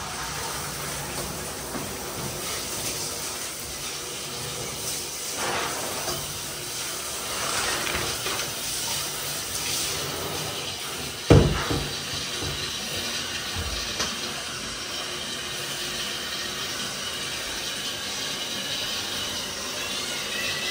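Water from a handheld shower head running steadily into an empty bathtub, the stream played over a hand to test its temperature. About halfway through a single sharp knock stands out, louder than the water.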